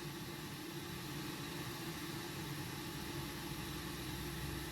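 Steady low hum with an even fan-like hiss from the repair bench equipment, unchanging throughout.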